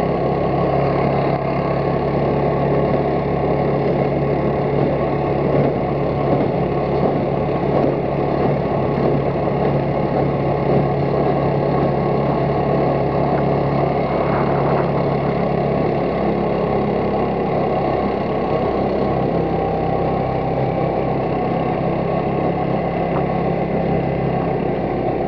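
Small motorboat's engine running steadily while the boat is under way.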